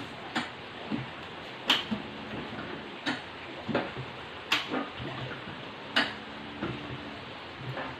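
Manual high-lift rack jack on a steel fodder baling press being pumped by hand, giving a sharp click with each stroke of the handle, about one every second or so, as it drives the press plate down onto the grass.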